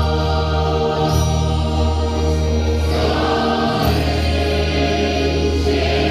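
A women's choir singing a Christian praise song over instrumental accompaniment, in long held notes over a steady bass.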